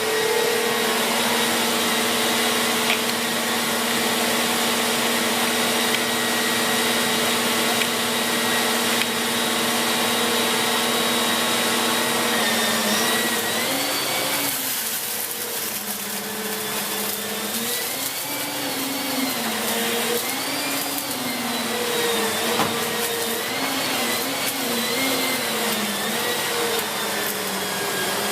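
Siemens Z6.0 Power 2500 W bagged cylinder vacuum cleaner running. Its motor note is steady for about the first half, then wavers up and down in pitch.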